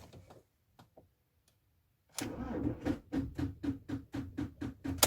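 Ford Transit van's starter solenoid clicking rapidly, about five clicks a second, as the key is held and the engine does not crank. This is the van's battery/starter fault: the starter does not get enough current to turn the engine.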